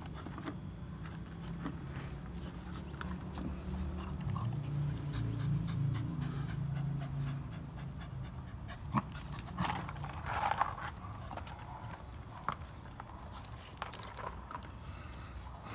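Pitbull puppy panting as it tugs at a rubber tire, with scattered knocks and scrapes of rubber and claws on stone.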